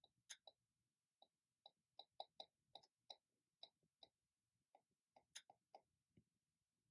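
Faint, irregular clicking of a computer's input device, about twenty sharp clicks spread over several seconds, as folders and files are navigated.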